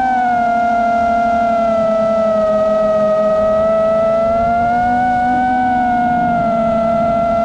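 Brushless motors of an iFlight Titan XL long-range FPV quadcopter whining steadily in flight, the pitch sliding gently down, then up about five seconds in and back down after six, as the throttle changes.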